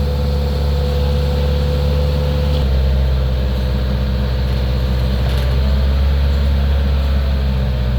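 Engine of heavy road-construction machinery running steadily with a deep hum; its note changes abruptly about two and a half seconds in, then carries on steady.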